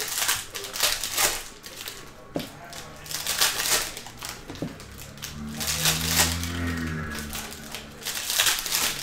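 Foil wrapper of a Panini Prizm basketball card pack crinkling and tearing as it is ripped open and handled, in a run of crisp rustling bursts, with the cards sliding against each other.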